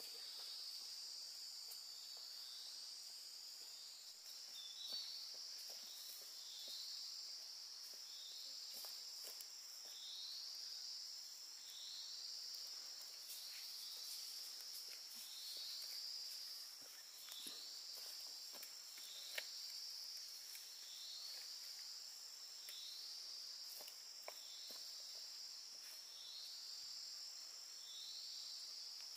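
Steady high-pitched insect chorus, with a short swooping call repeating about every one and a half seconds over it, and faint scattered clicks underneath.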